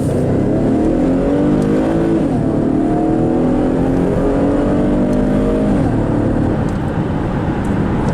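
2013 Chevy Camaro's 3.6 L V6 accelerating hard, heard from inside the car. The engine note climbs, drops as the automatic transmission upshifts about two seconds in, climbs again and drops at a second upshift near six seconds, then settles.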